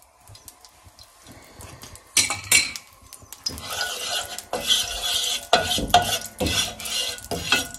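Wooden spatula scraping and knocking across a non-stick frying pan, spreading ghee and coconut oil over its surface. The strokes are quick and repeated, starting about two seconds in.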